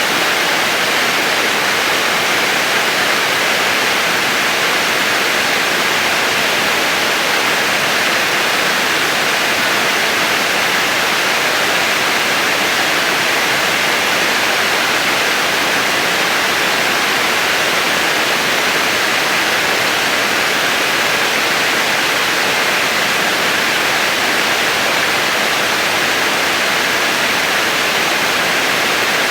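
Rushing water of a fast-flowing stream: a loud, even hiss without any change.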